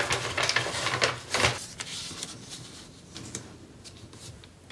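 Paper and packaging being handled: irregular rustling and scraping, busiest in the first two seconds and quieter near the end.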